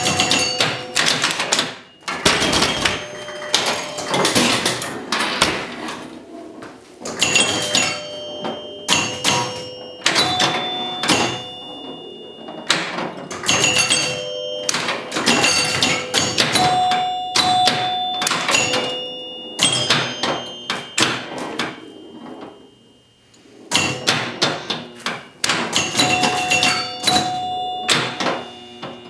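1976 Gottlieb Surf Champ electromechanical pinball machine in play: fast mechanical clacks and knocks from flippers, bumpers, targets and score relays, with its scoring chimes ringing at several different pitches again and again. A short lull about three quarters of the way in.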